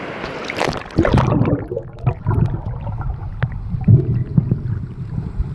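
Splashing as the camera goes into the sea about a second in, then the muffled sound of water heard from underwater: a low rumble of moving water with scattered small clicks and knocks.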